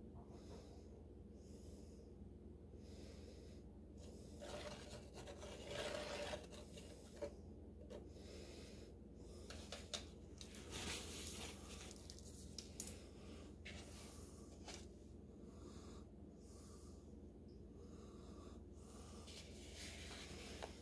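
Thin wooden stick stirring wet Cement All mix in a plastic cup: faint, uneven scraping and swishing, with a few sharp clicks.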